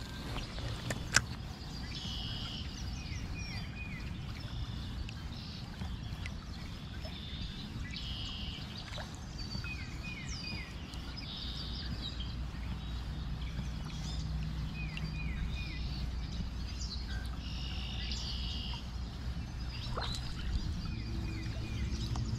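Songbirds singing short, repeated phrases over a steady low outdoor rush, with a single sharp click about a second in.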